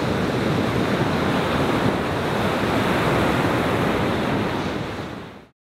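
Ocean surf breaking on a beach, a steady wash of waves with wind buffeting the microphone, fading out about five seconds in.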